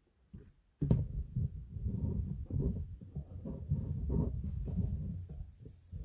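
Handling noise: low rubbing and bumping as kimono-fabric quilt blocks and paper templates are shifted about on a table close to the microphone. It starts with a sharp knock about a second in and continues irregularly.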